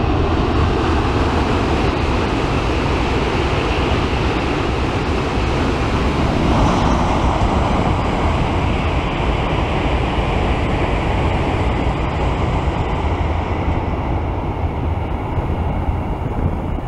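N700 series Shinkansen train crossing a steel truss bridge: a loud, steady rumble and rush that swells a little about halfway through, with wind buffeting the microphone.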